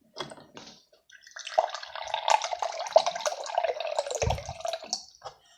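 Water running from a Hisense fridge freezer's door dispenser into a glass, starting about a second in and stopping shortly before the end. A dull knock sounds near the end.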